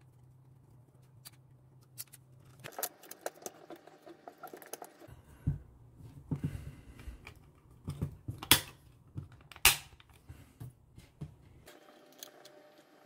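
Plastic parts of a Bambu Lab A1 extruder toolhead being handled and clipped back together, giving scattered small clicks and taps. Two louder sharp snaps, about a second apart, come a little past the middle as the front cover goes on.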